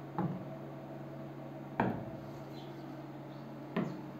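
Three short taps on an interactive touchscreen board's glass, about two seconds apart, over a steady low hum.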